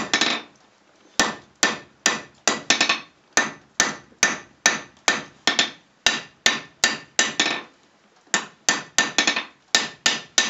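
Hand hammer striking a red-hot 1084 carbon-steel knife blank on an anvil while setting down the ricasso. The blows come steadily, about two to three a second, each with a short metallic ring, with two pauses of about a second.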